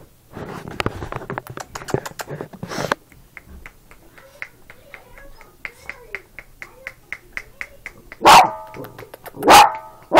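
Kyi-Leo, a small dog, barks twice, loud and sharp, near the end, about a second and a half apart. Before that there is a few seconds of rustling and then a run of light, quick ticks.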